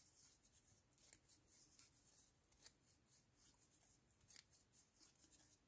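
Near silence with a few faint, scattered clicks and rustles: a crochet hook working cotton yarn in single crochet around the edge of a metal snap hair clip.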